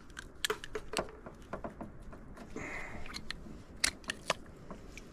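Scattered light clicks and knocks from a garden hose's fittings and a water tap being handled and disconnected, with a short hiss about two and a half seconds in and two sharper clicks near the end.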